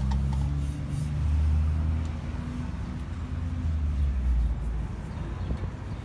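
Low rumble of a vehicle engine, swelling twice and easing off.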